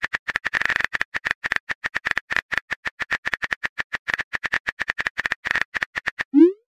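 Keyboard typing clicks from a texting app, rapid and even at about eight a second, as a message is typed letter by letter. Near the end comes a short tone that slides upward.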